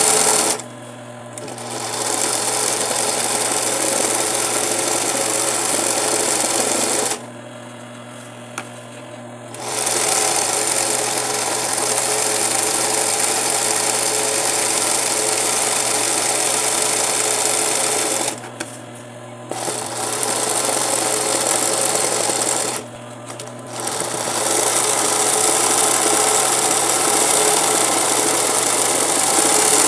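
Singer 20U industrial zig-zag sewing machine stitching around a fabric appliqué. It runs steadily and stops four times for one to two and a half seconds each, while a low hum carries on through the stops.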